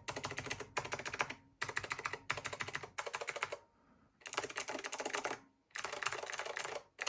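Fast typing in bursts on a keyboard with blue Alps switches and thick cast-polyurethane Keymacs keycaps, a dense clacking with a bassy tone. There are several brief pauses, the longest about four seconds in.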